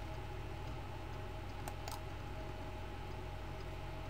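Steady low electrical hum and hiss of the recording setup with a few faint steady tones, and two quick faint clicks of a computer mouse button a little under two seconds in.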